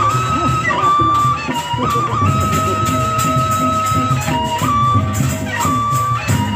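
Traditional Sasak ensemble music. A high melody of long held notes steps between a few pitches, over the busy rhythm of hand drums.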